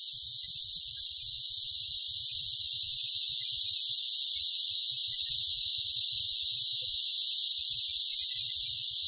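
Steady high-pitched hiss of filtered noise from a tinnitus sound generator, with faint ringing tones inside it, growing slightly louder over the seconds.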